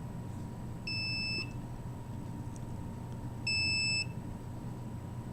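Handheld microwave/RF radiation detector's alarm beeping twice, each beep a short steady electronic tone about half a second long, about two and a half seconds apart: the detector is reading above its alarm threshold.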